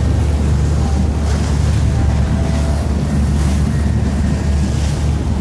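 Motorboat under way: a steady low engine drone with water rushing past the hull, and wind buffeting the microphone in gusts.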